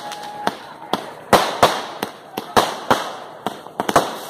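Festival fireworks display: about a dozen sharp bangs from bursting aerial shells, going off in quick, irregular succession.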